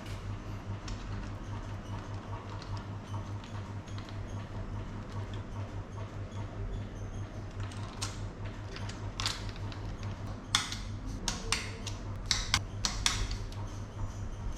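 A run of sharp clicks and light taps from tools and parts being handled during bicycle frame bearing work, over a steady low hum. The clicks start about halfway through and come thickest near the end.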